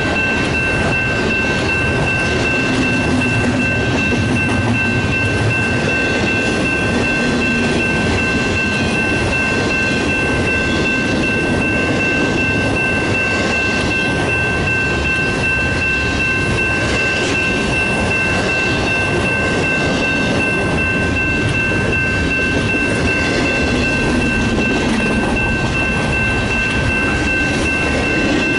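Union Pacific double-stack intermodal train's container well cars rolling past steadily, wheels rumbling and clattering on the rails. A steady high-pitched tone runs through it.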